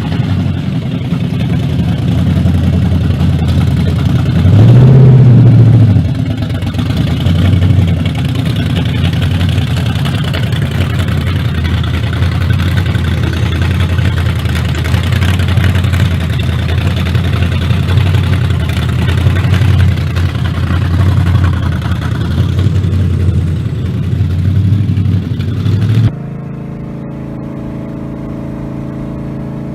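Loud big-block V8 of a Chevrolet Impala running with a low, uneven rumble. It is revved once, the pitch rising and falling about five seconds in. About 26 seconds in the sound cuts abruptly to a quieter, steadier engine note.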